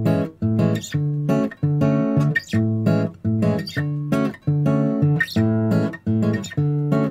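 Background music: guitar chords strummed in a steady rhythm.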